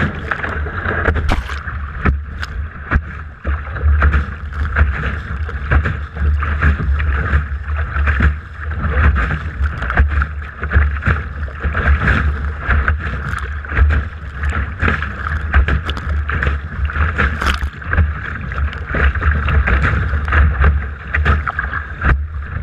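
Laser dinghy under sail, with water rushing and slapping against the hull in many small splashes over a steady wind rumble on the microphone.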